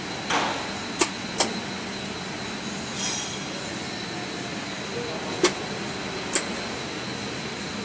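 FTPEG 1000 compound air-bubble film machine running with a steady mechanical noise and a faint high whine, broken by four sharp clicks.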